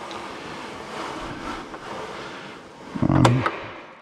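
TV mounting brackets scraping as they slide down the aluminium column of a mobile TV stand, ending in a loud knock about three seconds in.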